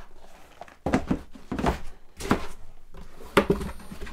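Cardboard box packaging being handled: about half a dozen knocks and thuds as the stiff inner lid and packing pieces are lifted out and knocked about, the loudest about three and a half seconds in.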